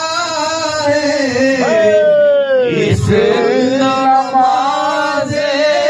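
A man singing a drawn-out melismatic line of a devotional kalam, holding long notes and sliding between them, with a falling glide about halfway through.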